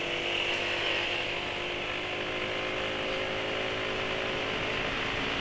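Motor scooter engine running steadily under way with road noise, heard from the rider's seat. The engine hum sags slightly in pitch.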